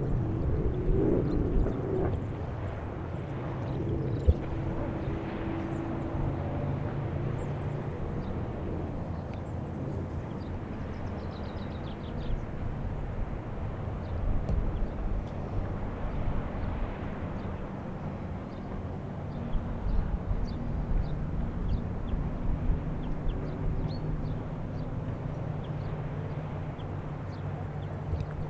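A steady low engine drone, outdoors in open air.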